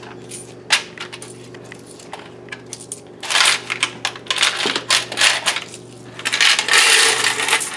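Quarters clinking and jingling as they are handled and shaken about, with scattered single clinks at first and then two denser bursts: one about three seconds in and one near the end.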